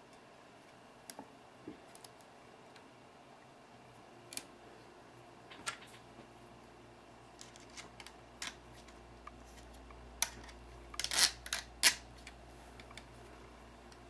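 Scattered small clicks and taps of RC crawler suspension parts being handled and fitted by hand on an HSP Pangolin, as an upper control arm goes on. A cluster of louder clicks comes about eleven to twelve seconds in.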